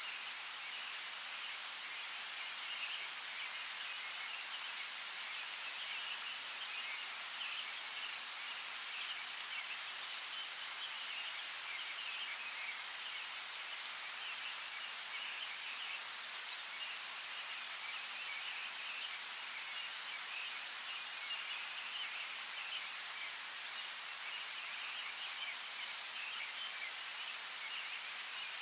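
Steady rainfall hissing evenly, with scattered drops ticking now and then and birds chirping faintly throughout.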